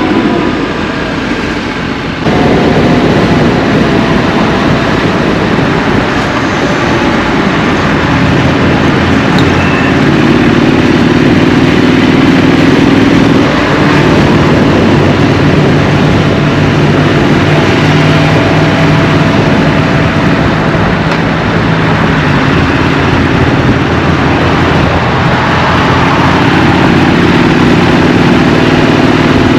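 Triumph Street Scrambler's 900 cc parallel-twin engine running as the motorcycle rides, its revs rising and falling again and again. It gets suddenly louder about two seconds in.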